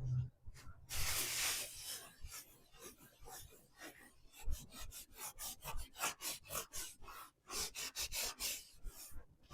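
Clear furniture wax being rubbed onto a milk-painted wooden cabinet: a longer scratchy rub about a second in, then quick back-and-forth strokes, several a second.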